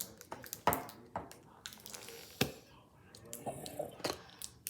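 The slime kit's container being handled and worked open by hand: scattered sharp clicks and knocks, the loudest about two-thirds of a second and two and a half seconds in.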